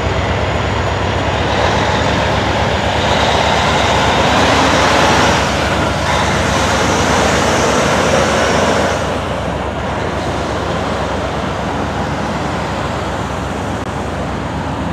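Road traffic crossing the tracks: a tanker semi-truck drives past close by, loudest for several seconds in the middle and falling away suddenly about nine seconds in, then cars pass over a steady low rumble.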